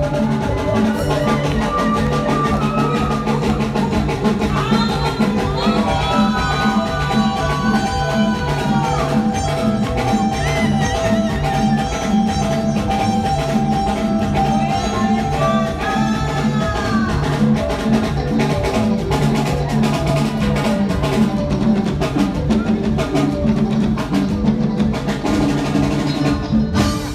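Live band playing an instrumental groove at a sound check: drums and percussion over a steady bass line, with a lead instrument sliding up and down in pitch now and then.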